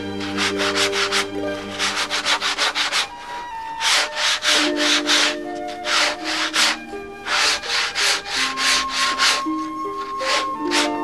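A thin board panel sanded by hand, a small block rubbed over it in quick back-and-forth strokes that come in runs of several with short pauses between. Soft background music with long held notes plays underneath.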